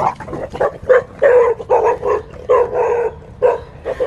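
Dog barking in a quick run of short barks, about two to three a second, at a stuffed toy tiger dangled on a stick.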